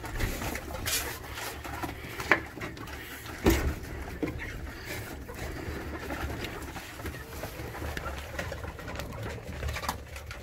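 Pigeons cooing steadily, with two sharp knocks about two and three and a half seconds in.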